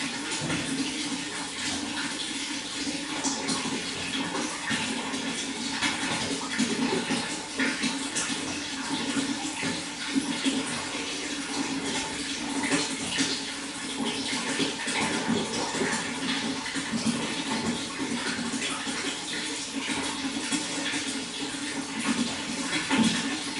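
Running water: a steady rush dotted with many small splashes.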